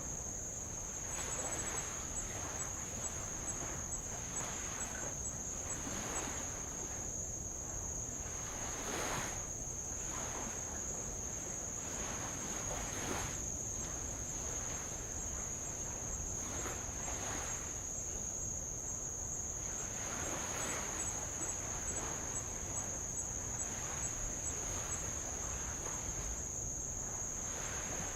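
Insects chirring in an unbroken high-pitched drone, with light waves lapping and washing against old lava rock in soft swells every few seconds.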